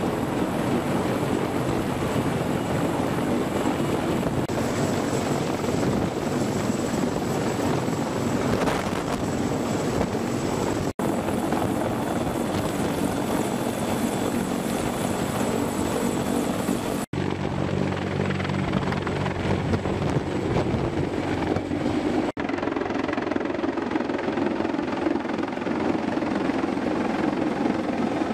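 CH-53E Super Stallion, a three-turbine heavy-lift helicopter, hovering close overhead and flying with an external sling load: loud, steady rotor and turbine noise. The sound cuts out briefly three times.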